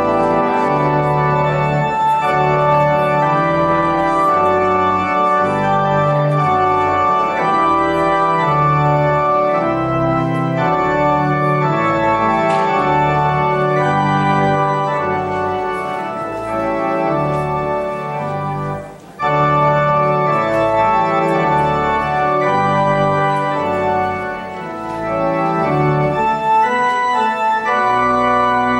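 Organ playing held chords over a moving bass line, with a brief break about two-thirds of the way in before the music resumes.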